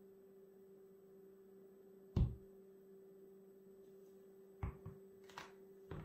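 A studded soccer cleat set down hard on a wooden floor, one heavy thud about two seconds in, followed near the end by several lighter knocks of cleated footsteps on the floor. A faint steady hum runs underneath.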